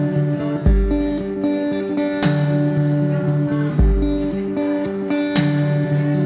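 Electric guitar playing a song's instrumental intro: ringing picked notes, with a sharp strummed chord and a deep low note each coming back about every three seconds in a repeating pattern.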